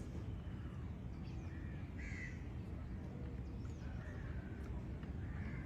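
Several short bird calls, spaced about a second or two apart, over a steady low rumble.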